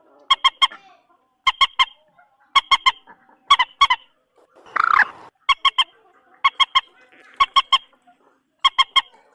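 Common moorhen calling: short, sharp honking notes in quick groups of two or three, about one group a second. A single harsher, rasping burst comes about five seconds in.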